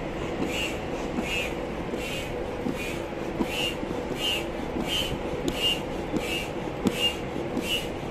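Foot pump being stepped on in a steady rhythm, about two strokes a second, each stroke a short puff of air pushed through the hose into a rubber boat's tube.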